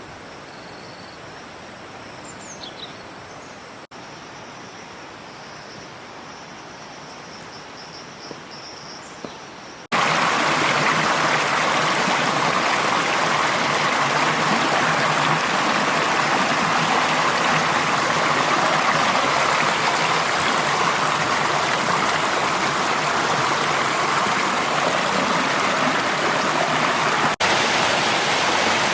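Rushing stream water, fairly soft at first with a faint, thin, high chirping over it. About ten seconds in it jumps suddenly to a loud, close, steady rush of cascading water.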